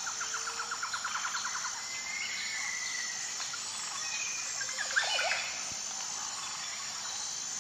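Forest ambience of several birds calling over a steady high insect drone: a fast trill of repeated notes at the start, a drawn-out whistle a couple of seconds in, and a short, louder call about five seconds in.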